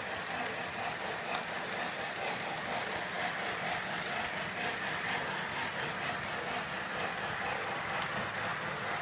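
Electric model trains running on a layout: a steady whir of small motors and wheels rolling on metal track, with faint light clicking over the rails.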